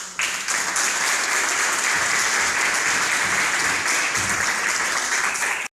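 An audience applauding, dense and steady, starting suddenly and cutting off abruptly near the end.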